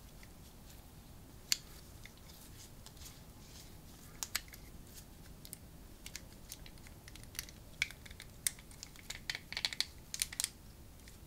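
Small, sharp plastic clicks and taps from an action figure and its packaging being handled: scattered ticks with one louder click about a second and a half in, and a quick run of clicks near the end.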